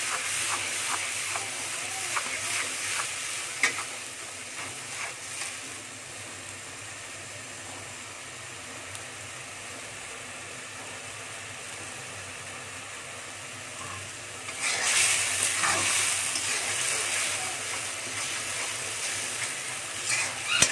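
Coriander-leaf and green-chilli paste sizzling in hot oil in a metal karahi, with a steel spatula clicking and scraping against the pan in the first few seconds. The sizzle settles to a steady low hiss, then grows louder again about two-thirds of the way through.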